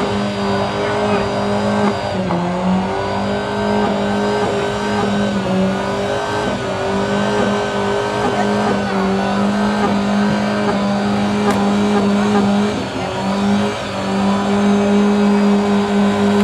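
Car engine held at high, steady revs during a burnout, its note dipping briefly a few times, over a dense noisy haze.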